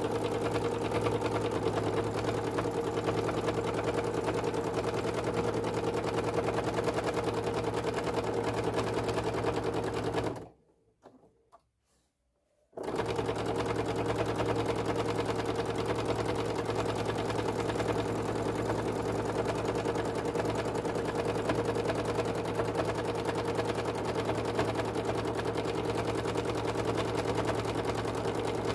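Domestic sewing machine running fast and steadily in free-motion stitching, the needle rattling at a constant rate. It stops for about two seconds near the middle, then starts again at the same speed.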